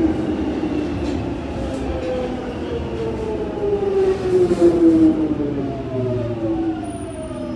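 1996-stock Jubilee line Tube train's traction motors whining as it brakes into a station: several tones fall steadily in pitch as the train slows, over a low rumble from the wheels and track.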